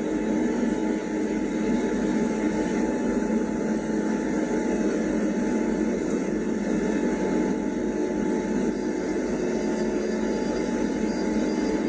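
Heavy diesel engines of large mining bulldozers and a haul truck running in a steady drone, unchanging throughout.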